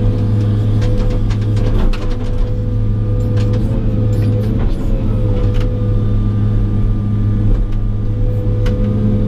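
John Deere 200 excavator heard from inside the cab while tracking: a steady diesel engine drone with scattered clanks and clicks. A faint steady whine comes in about six seconds in.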